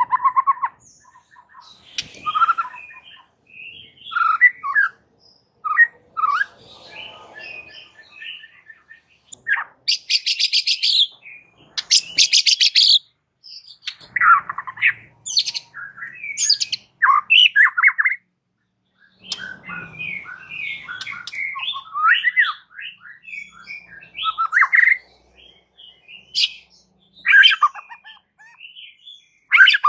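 White-rumped shama (murai batu) in full song: a long run of varied whistled phrases and chirps, broken by short pauses. It includes harsh, rattling high bursts about ten and twelve seconds in.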